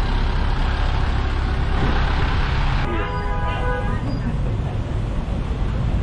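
Close street traffic with engine rumble, then a vehicle horn sounding once for about a second, about three seconds in.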